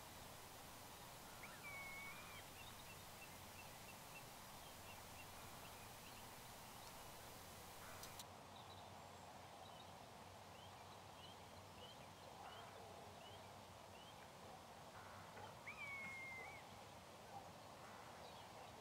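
Near silence with faint bird calls: scattered short chirps and two longer slurred calls, one about two seconds in and one about sixteen seconds in.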